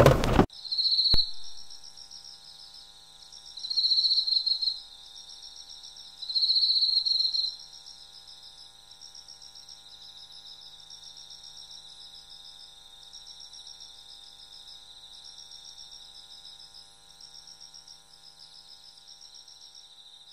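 Crickets chirping: a steady, high, pulsing trill with three louder chirping bursts in the first seven seconds. There is a single sharp click about a second in.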